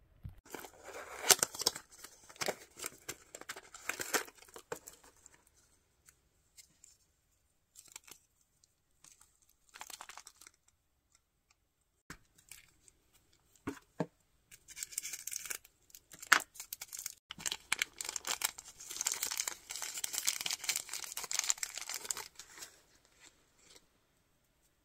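A blind-box toy's packaging being torn open and handled: cardboard and plastic wrappers tearing and crinkling in bursts, with a few sharp clicks about halfway through and a longer run of crinkling near the end.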